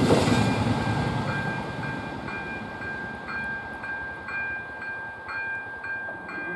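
A passing train's rumble fading away as it leaves the level crossing, while the crossing's electronic warning bell keeps ringing in steady repeated strokes, about two a second.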